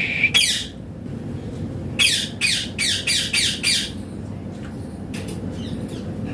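Indian ringneck parakeet squawking: one harsh screech just after the start, then a rapid run of about six screeches about two seconds in.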